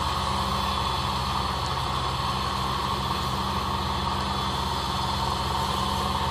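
A motor running steadily at one speed: a low, even hum with a hiss over it, unchanging throughout.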